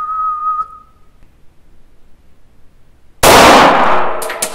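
A single shot from a prototype VZ-15 pistol in 9x19 about three seconds in, very loud and sudden, with a ringing tail and a few light clicks after it. Before it comes a short whistled note held on one pitch for about a second.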